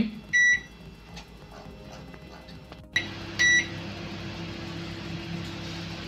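Panasonic microwave oven, preheated to 200 °C, being set for 8 minutes and started: two short high beeps from the control panel, the second just after a click about three seconds in, and from that click on the oven running with a steady low hum.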